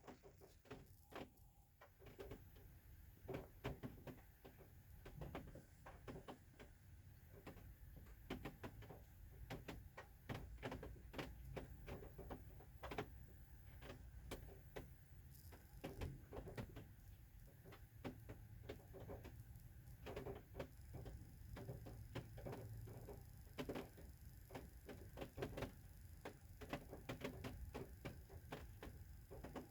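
Faint rain: irregular drops tapping, several a second, over a low steady rumble.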